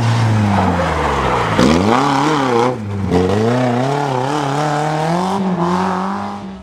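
First-generation Toyota RAV4 rally car's engine as it slides through a gravel corner: the revs fall for about a second and a half, then climb and waver, with a brief dip about three seconds in. The engine sound cuts off abruptly at the very end.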